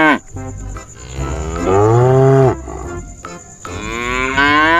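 Holstein dairy cows mooing: two long moos, the second rising in pitch toward the end.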